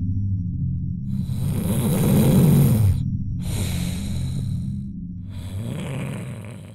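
Slow, heavy breathing sound effect for a sleepy character: three long breaths over a low steady drone, the first with a low voice in it that falls in pitch, like the tail of a yawn. Everything cuts off suddenly at the very end.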